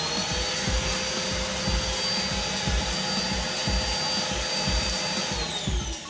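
Old vacuum cleaner motor in a home-built cyclone dust extractor running at full speed with a steady high whine. About five seconds in it is switched off and starts to spin down, its whine falling.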